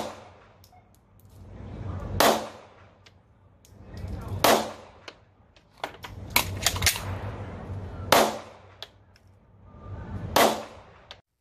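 Semi-automatic pistol firing single shots about two seconds apart, each a sharp crack with a short ringing tail, with a quicker cluster of cracks around the middle. The sound cuts off just before the end.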